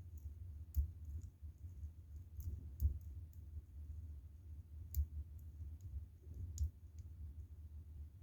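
Lock pick and tension wrench working the pins of a Kwikset-type pin-tumbler cylinder, making scattered light clicks at irregular intervals over a low steady rumble.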